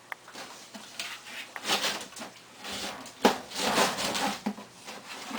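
Scraping, rustling and knocking as pets push and bump against an empty litter box, with a sharp knock a little past the middle.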